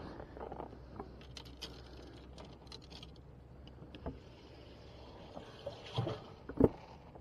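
Scattered light clicks and taps of handling gear on a bass boat's deck, then the livewell hatch being opened, with a sharp knock about six and a half seconds in as the loudest sound.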